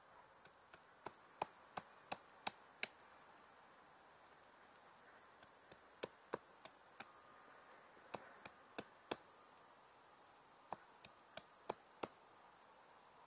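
A knife blade chopping into a thin wooden stick: sharp knocks in four short runs of three to six strokes, about three a second, with pauses between the runs.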